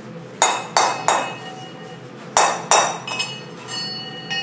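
Sharp metallic knocks on a freshly cast cow bell as its casting runners are knocked off: three strikes about half a second in, two more past the middle, then lighter taps, with the bell ringing on clearly near the end.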